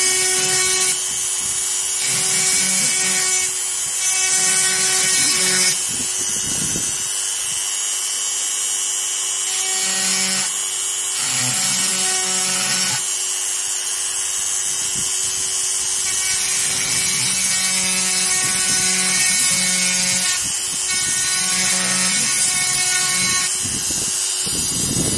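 Electric rotary engraver running at speed with its bit cutting into a titanium block: a steady motor whine under a gritty grinding hiss that changes every few seconds as the bit bears harder or lighter on the metal.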